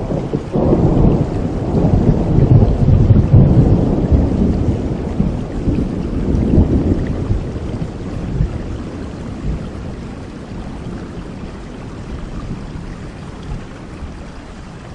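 A long rolling thunderclap over steady rain: the low rumble swells in the first second, peaks a few seconds in, and fades away over about ten seconds, leaving the rain's steady hiss.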